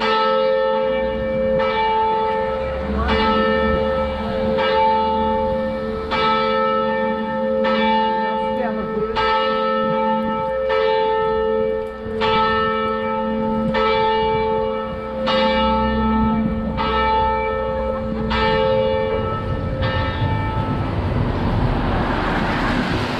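A single church bell tolling, one stroke about every one and a half seconds, each stroke ringing on into the next. The tolling stops near the end as a tram rumbles in on its rails.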